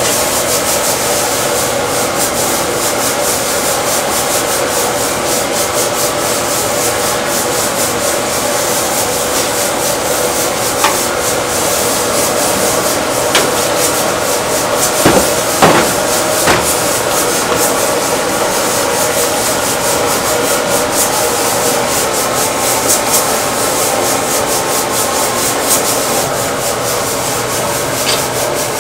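Hands rubbing salt into a slab of raw pork belly in a stainless steel tray, a steady gritty scrubbing, with a few sharp knocks about halfway through.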